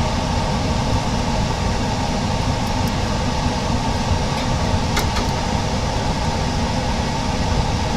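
Steady mechanical hum with an even rushing noise, like a fan or motor running, and one short click about five seconds in.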